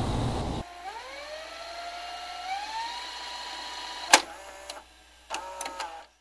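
A single pitched tone glides slowly upward, steps up again and holds. A sharp click comes about four seconds in, and a few short tones with clicks follow near the end before the sound cuts off.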